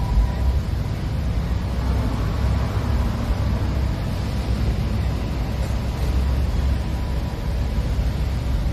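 Steady low rumble with an even hiss above it, without clear events or rhythm.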